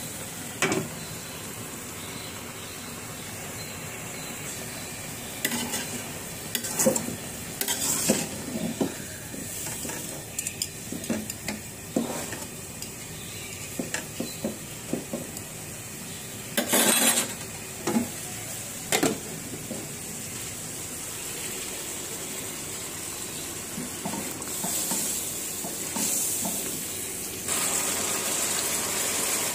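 A metal spatula stirring and scraping leafy greens frying in a wok, with steady sizzling and knocks of the spatula against the pan. Near the end the sizzling gets louder as a pan of spice paste is being fried down.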